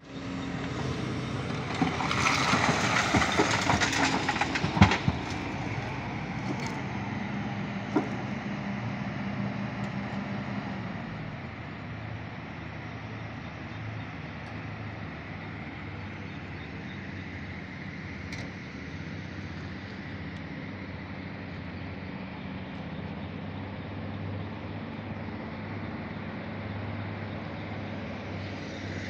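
Diesel engines of a hydraulic excavator and a loaded tipper truck running. About two seconds in, rock is dumped from the excavator bucket into the truck's steel body: a few seconds of loud clattering with sharp knocks. After about eleven seconds a steadier, quieter engine drone is left.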